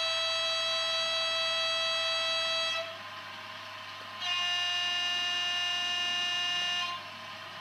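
Recorded railcar horn played through the onboard loudspeaker of a Jouef X 72500 model railcar: one long blast ending about a third of the way in, then after a short pause a second, slightly higher, long blast. A faint steady hum runs underneath.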